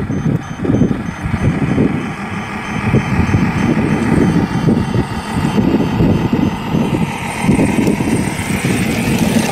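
Wind buffeting the microphone in gusts, with the faint whine of a 1/10-scale 6x6 RC semi truck's motor falling in pitch and then rising again near the end as the truck drives through shallow water and over rocks.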